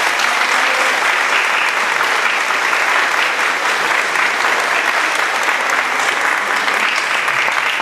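Audience applauding in a large hall, a steady dense clapping that sets in just after the speech ends and holds level throughout.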